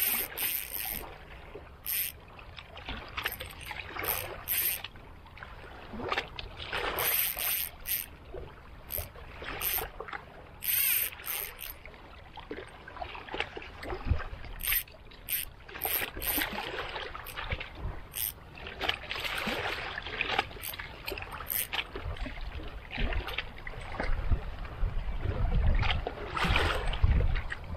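Sea water washing and splashing in irregular surges, with low wind rumble on the microphone growing stronger near the end.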